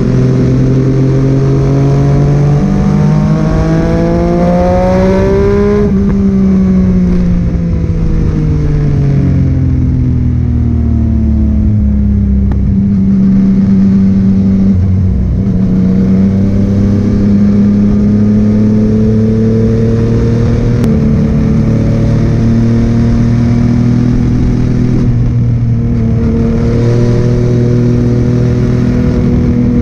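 Yamaha MT-09 three-cylinder engine through a Scorpion full exhaust system, ridden at speed. The revs rise for a few seconds, fall away slowly, then climb gradually again.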